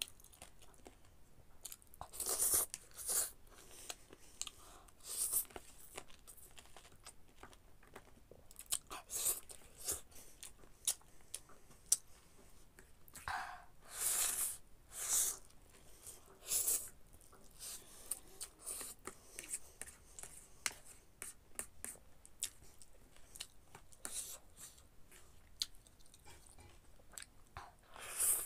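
Close-up eating sounds of spicy noodles: repeated short slurps as noodles are sucked into the mouth, between wet chewing and lip-smacking clicks.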